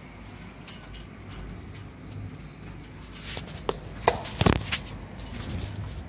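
Strong storm wind blowing, with gusts buffeting the microphone in a run of rough, sudden bursts from about halfway through.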